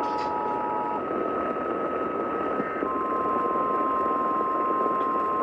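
Static-filled AM radio reception of an Emergency Alert System relay. The two-tone EAS attention signal stops about a second in, and about three seconds in the single steady 1050 Hz National Weather Service warning tone begins. A steady higher whistle runs under both.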